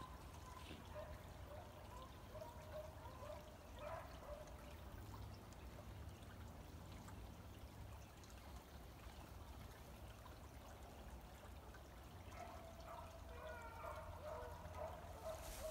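Faint, distant beagles baying, in broken wavering calls: a spell in the first few seconds, then again and building near the end. Under it runs a steady low rumble.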